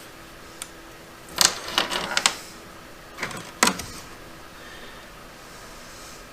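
Sharp clicks and knocks of hard plastic and a tool being handled while a screw is started in a kayak's plastic fitting. There is a quick cluster about a second and a half in, two more knocks about a second later, and no steady motor sound.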